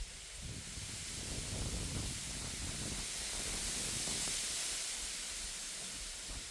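Wind gusting through reeds: a rustling hiss that swells to a peak about four seconds in and then eases, with a low rumble of wind on the microphone.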